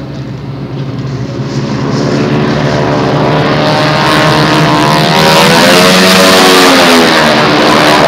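Four North American Harvard trainers, each with a Pratt & Whitney R-1340 nine-cylinder radial engine, running in close formation. The engine and propeller drone builds steadily over the first five seconds to its loudest as they pass. The note bends in pitch as they go by.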